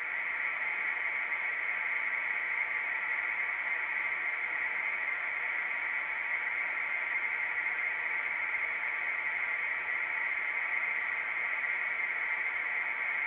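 A steady, unchanging hiss like radio static, strongest in the upper middle of the range and without any clear pitch or rhythm.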